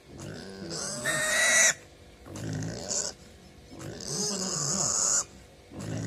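Pig squealing and grunting in repeated loud calls while held down for castration: a piercing squeal about a second in, a shorter cry near three seconds, a long squeal from about four to five seconds, and another starting at the very end.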